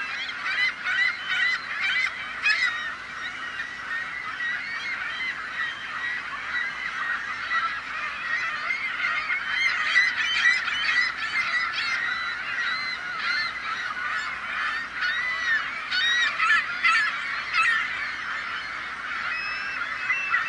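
A flock of gulls calling at once, many overlapping squawks and cries merging into a continuous din, with single louder calls standing out now and then.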